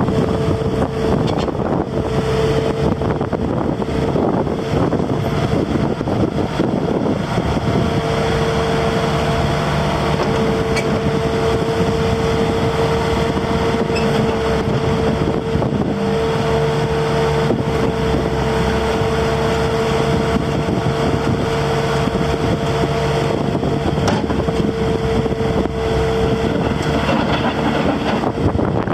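2011 Bobcat T870 loader's diesel engine running steadily, with a steady whine over the engine noise.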